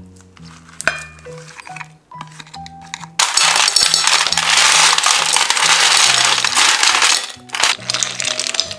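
Ice cubes poured from a plastic container into a glass bowl, clattering and clinking against each other and the glass. They come in a dense rattle that starts about three seconds in and lasts about four seconds, then a shorter second pour near the end.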